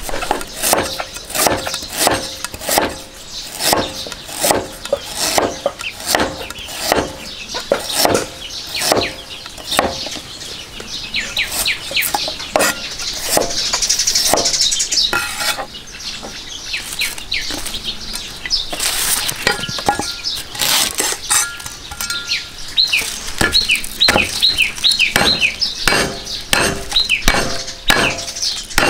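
Cleaver slicing ginger thin on a wooden chopping block: a steady run of knocks, about two a second. Birds chirp in the background, most in the second half.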